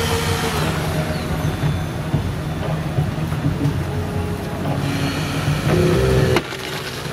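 Hydraulic rescue tool working on a car's door pillar, its power unit running steadily. The running drops off sharply about six and a half seconds in.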